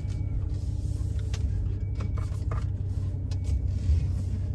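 2010 Ram 1500's 5.7 Hemi V8 running low and steady, heard from inside the cab as the truck reverses. A faint, brief high brake squeal comes three times, which the owner puts down to something to do with the parking brake.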